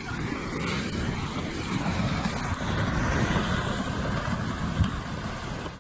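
Rushing floodwater: a steady, loud, noisy rumble.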